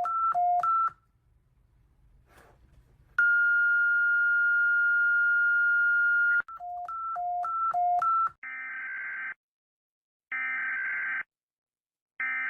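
Electronic emergency-alert tones. Quick beeps alternate between a high and a low pitch, then one steady high tone holds for about three seconds, then more alternating high-low beeps. Near the end come three buzzy tones of about a second each, with short gaps between them.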